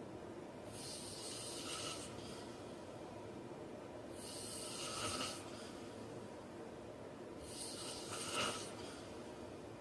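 A man snoring in his sleep: three noisy breaths about three and a half seconds apart, the last two each peaking in a short, sharper snort.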